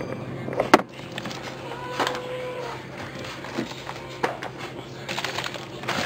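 Food packages and containers being handled inside a refrigerator freezer: rustling and small handling noises, with a sharp knock under a second in and another about four seconds in, over a steady low hum.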